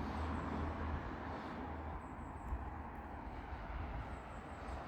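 Steady background traffic noise from a busy road, a continuous low rumble with no distinct passing vehicle.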